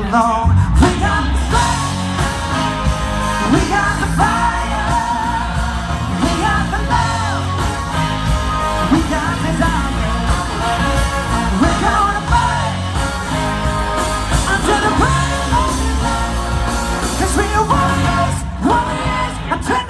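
A live band playing a rock song: a man singing lead over drums, bass, electric guitar and a horn section.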